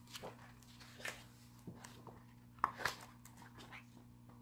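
Pages of a paperback book being handled and turned open, giving a few short papery rustles, the loudest two close together about two and a half seconds in, over a steady low hum.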